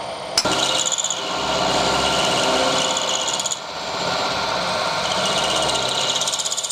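Power tool cutting metal, running steadily with a high hiss. There is a sharp knock about half a second in and a brief dip a little past halfway, and the sound turns to a fast pulsing near the end.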